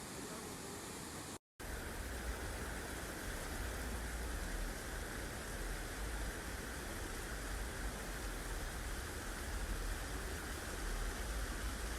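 Steady rushing noise of a moving-water sound track. It cuts out completely for an instant about a second and a half in, then goes on with a deeper rumble underneath.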